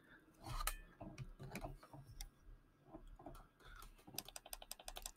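Faint clicks and taps of a computer keyboard and mouse, then a quick, even run of small ticks, about ten a second, near the end.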